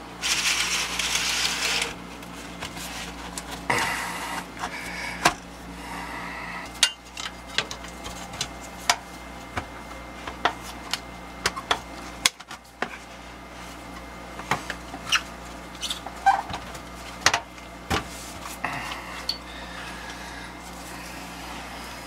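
Gloved hands rubbing and knocking on a sheet-metal air handler cabinet while it is wiped clean: scattered sharp clicks and knocks, with a loud rushing hiss for about the first two seconds, over a steady low hum.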